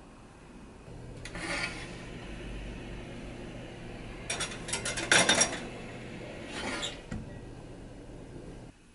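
A metal muffin tin scraping and clattering as it is slid onto an oven's wire rack, loudest about halfway through, with a scrape near the start and another scrape and a thump as the oven door is shut near the end. A low steady hum runs underneath and cuts off shortly before the end.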